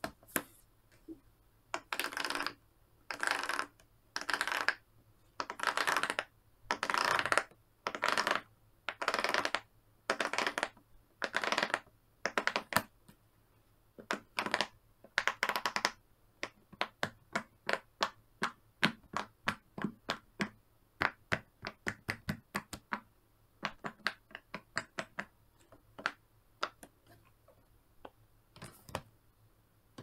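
Large silicone pop-it fidget toy being handled: for the first half, about a dozen separate noisy half-second strokes; then many quick, sharp pops, several a second and irregular, as single bubbles are pressed one after another, with one longer stroke near the end.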